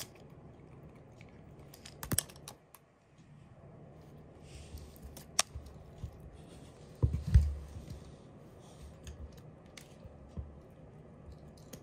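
Shiba Inu puppy's paws and claws clicking and tapping on a wooden floor in scattered light taps as it scampers about playing, with one heavier thump about seven seconds in.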